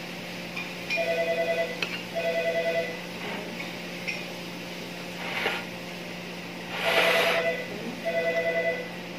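A telephone ringing in a double-ring pattern: two short trilling rings, a pause of about four seconds, then two more. Between the rings come a couple of brief scraping noises as a spoon scoops filling from a bowl.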